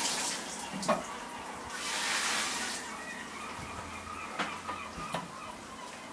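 Outdoor ambience coming through an open doorway: an even hiss that swells twice, with a few light knocks about a second in and again near the end.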